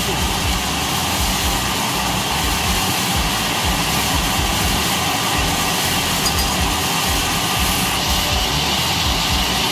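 Large log band saw running and sawing a log on its carriage, a loud steady mechanical noise with a low rumble underneath.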